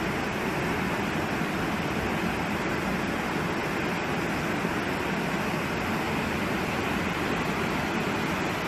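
Steady rushing noise of floodwater pouring along a flooded street.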